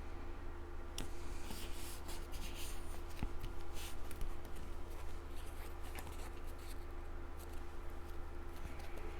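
Card stock being handled and fitted together by hand: light paper scrapes, rustles and small taps, busiest in the first half.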